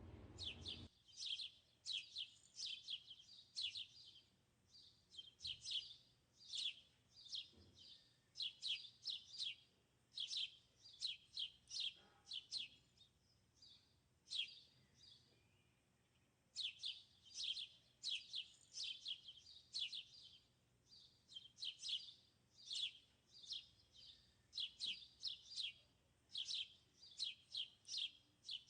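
A bird chirping: runs of quick, high, downward-sweeping chirps, several a second, with a brief pause about halfway through.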